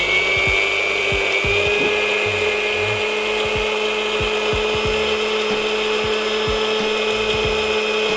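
Indian mixer-grinder motor running steadily at full speed with a small steel jar held shut by hand, wet-grinding soaked cashews and coconut into a paste. Its pitch settles a little higher in the first second or two, then holds steady.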